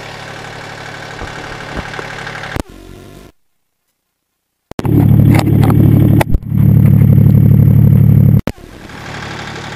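Kubota diesel tractor engine idling steadily. A click, then the sound cuts out completely for more than a second as the microphone is unplugged and moved. It comes back as a much louder, boomy engine drone with a few handling knocks, and after another click the steady idle returns at its earlier level.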